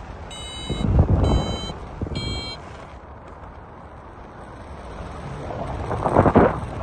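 Paragliding variometer beeping three times, about a second apart: its climb tone, the sign of rising air. Wind buffets the microphone throughout, gusting loudest about a second in and again near the end.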